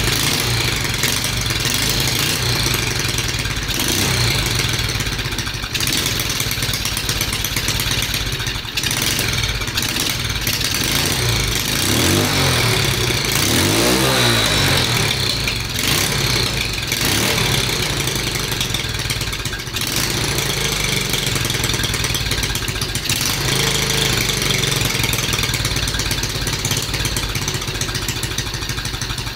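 Single-cylinder 125cc Lifan clone four-stroke engine in a Honda Z50R mini bike, running just after starting while its idle is being adjusted at the carburettor. The engine speed dips and picks up again around the middle.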